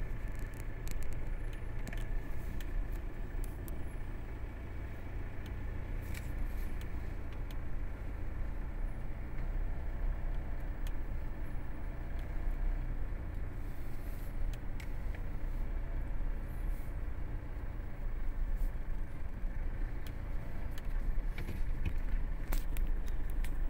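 Inside a car driving slowly: steady low engine and road rumble, with occasional light clicks and rattles.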